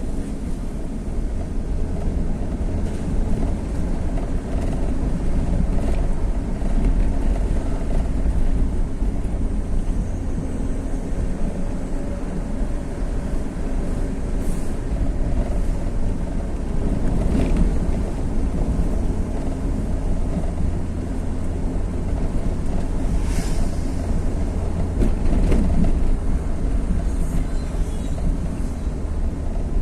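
Steady low rumble of a vehicle travelling along a road, with wind noise on the microphone and a few brief higher-pitched sounds partway through.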